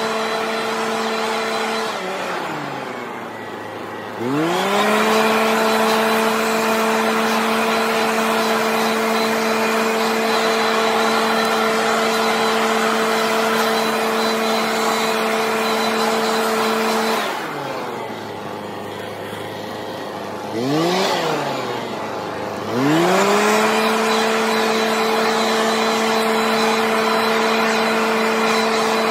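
Husqvarna backpack leaf blower's two-stroke engine running at full throttle while clearing grass clippings. Twice the throttle is let off, about two seconds in and again about seventeen seconds in, and the engine sinks to idle before revving back up to full speed a few seconds later, with a short blip in the second lull.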